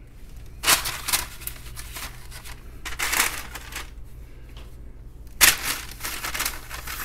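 Parchment paper crinkling and rustling in three bursts, about half a second in, around three seconds in and again near the end, as dough logs are laid on the parchment-lined baking sheet.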